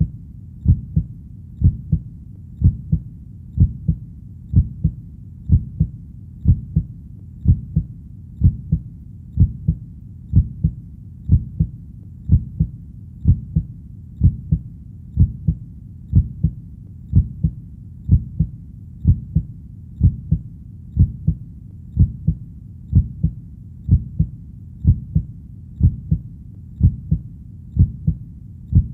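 Human heartbeat: a steady lub-dub, each beat a pair of low, soft thumps close together, repeating evenly at about one beat a second.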